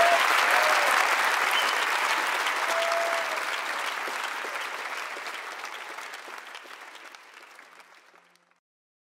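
A live worship congregation applauding, with a few cheers, fading out steadily to silence about eight and a half seconds in.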